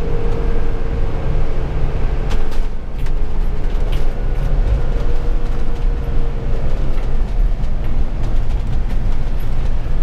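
Cab noise of a Mercedes-Benz turbo-diesel motorhome driving on the road: a steady engine drone and road rumble, with a thin steady whine that fades out about two-thirds of the way through.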